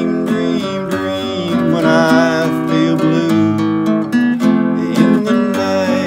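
Acoustic guitar strummed in a steady rhythm, with a man's voice singing along around two seconds in.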